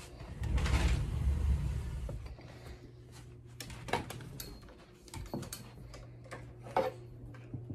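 Rustling and low rumbling from the phone being handled and carried about for the first two seconds, then a few light clicks and knocks, one near the end as a hand touches the ring light stand.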